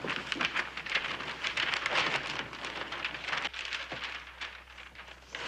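Paper wrapping crinkling and rustling as a package is unwrapped, a dense run of small crackles.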